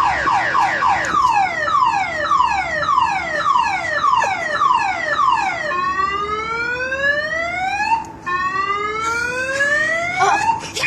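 Car alarm siren sounding loudly and cycling through its tones: rapid falling sweeps, then slower falling sweeps about two a second, then two long rising whoops.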